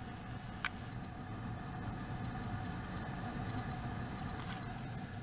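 Car cabin noise while driving: a steady low road and engine rumble, with one sharp click about two-thirds of a second in.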